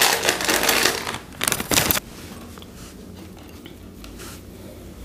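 Thin plastic bag crinkling and rustling as a bundle of nylon cable ties is pulled out of it. The rustling stops abruptly about two seconds in, leaving only faint handling ticks.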